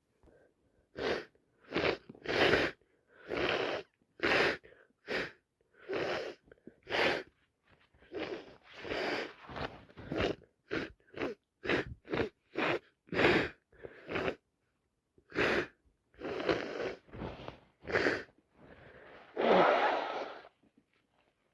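A woman with a head cold sneezing and gasping in a long run of short bursts, more than one a second, ending on one longer, louder burst near the end.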